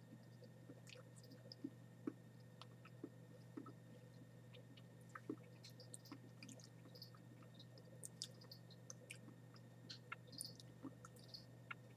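Faint chewing of dried sago worms (red palm weevil larvae): small, irregular crunches and clicks, scattered throughout, over a low steady hum.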